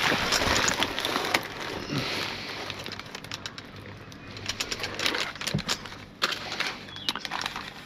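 Plastic packaging and small boxed products rustling and crinkling as they are handled, loudest in the first two seconds, then scattered light clicks and taps.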